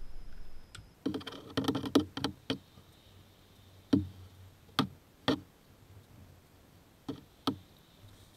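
Sharp knocks and clicks from hand tools and parts being handled during work in a car's engine bay. A quick flurry of clicks comes just after a second in, then single knocks follow at irregular gaps over the next few seconds.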